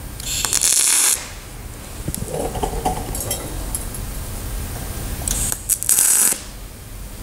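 TIG welding arc joining a steel piece to a brass bar, hissing in two short bursts of about a second each, near the start and about five and a half seconds in: tack welds. Light metal clinks and handling between the bursts.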